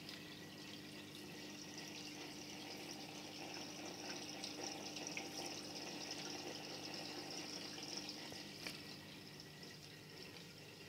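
Faint, steady trickle of aquarium water circulating from the filter into the tank, with a low steady hum underneath and one light tick near the end.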